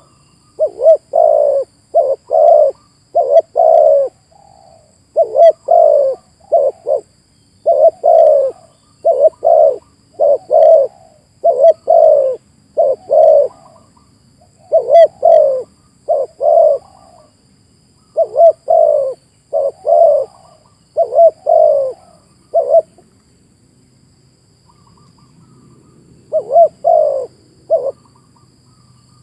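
Spotted dove cooing: a long run of repeated low, pitched coo phrases, breaking off for a few seconds near the end before a few more coos.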